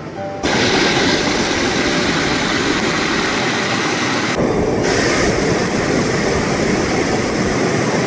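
Loud, steady rush of white water cascading over river boulders. It starts about half a second in and is briefly duller about halfway through.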